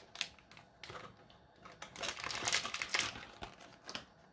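A paper spice packet of paprika powder being shaken and tapped over a pot, with its paper rustling and crinkling in quick small clicks, most densely about two to three seconds in.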